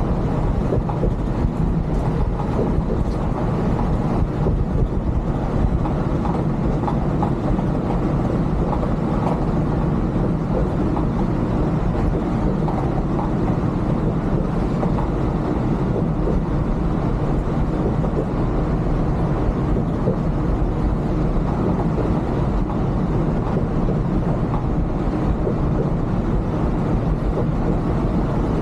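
Volvo B11R coach cruising at highway speed, heard from the driver's cab: a steady drone of its six-cylinder diesel engine mixed with road and tyre noise.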